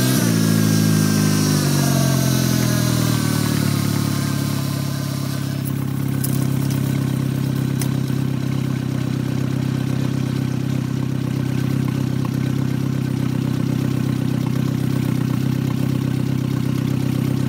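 Kia Morning engine running with its oil pan removed, just after a start. The revs fall over the first few seconds, then it settles into a steady idle while oil is drawn up and flung off the exposed spinning crankshaft, as an oil-circulation test.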